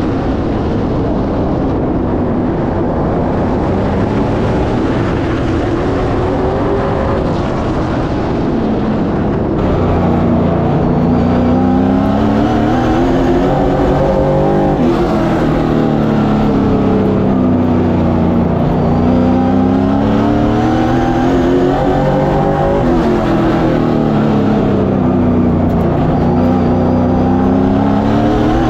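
Pro Late Model race car's V8 engine at racing speed on a short oval track. Its pitch climbs down each straight and falls off as the driver lifts for the turns, in repeated swells every few seconds. It is heard first through rushing noise from an outside-mounted camera, then louder and clearer from inside the cockpit about a third of the way in, where the motor sounds good.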